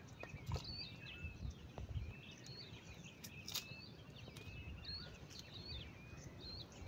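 Small birds chirping, short up-and-down calls about twice a second, over a low rumble of outdoor background noise, with a few faint sharp clicks.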